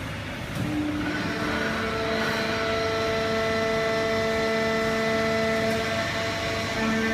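Fully automatic horizontal hydraulic baling press and its feed conveyor running: a steady mechanical din with a hum of several steady tones that comes in and grows louder about a second in.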